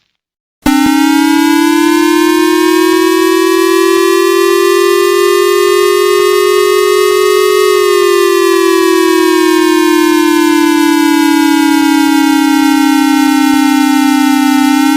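Siren-style emergency alert alarm tone: one steady, buzzy pitched tone that rises slowly for about seven seconds, then slowly falls, and cuts off abruptly.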